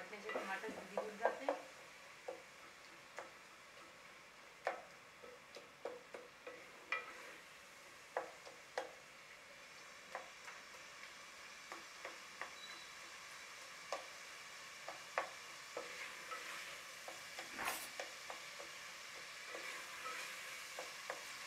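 A spatula stirring a thick tomato and green-chilli masala in a metal pot, ticking and scraping against the pot about once a second. Under it the masala sizzles softly as it fries down in its oil.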